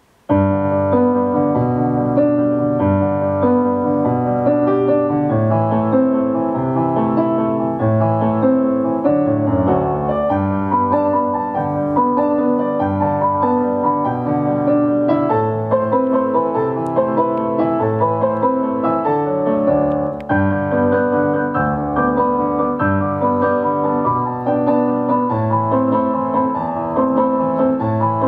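Piano music begins suddenly right at the start and carries on without a break, a melody of held notes over a changing bass line.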